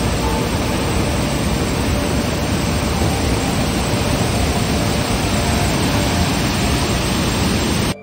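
Large waterfall in full flow pouring over wide stepped rock ledges: a loud, steady rush of falling water.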